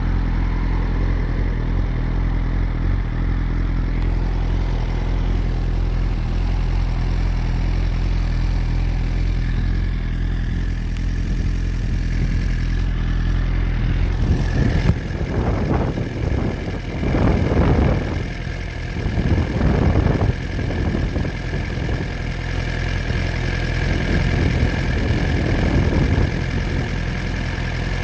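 A vehicle engine running steadily at low revs, a constant low hum, with irregular louder surges of rushing noise over it in the second half.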